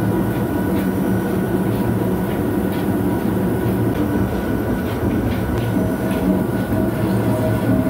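Vertical turning lathe running as it turns a large SS450 steel separator drum, the tool cutting the spinning rim. A steady machine hum with a low rumble and several steady tones, with faint light ticking on top.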